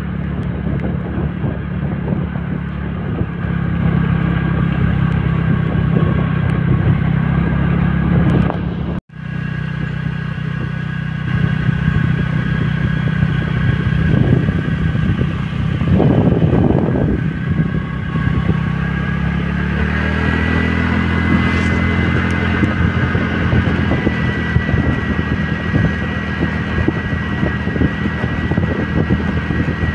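Motor scooter engine running steadily at riding speed, with rushing noise over it. The sound breaks off sharply for an instant about nine seconds in, and the engine note rises a little from about twenty seconds in as it picks up speed.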